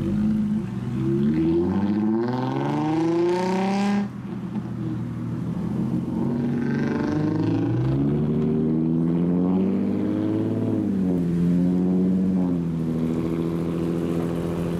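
Nissan 350Z's V6 exhaust revving up hard as it pulls away, the rising rev cutting off sharply about four seconds in. Then other lowered cars' engines rev up and run steadily as they drive out one after another.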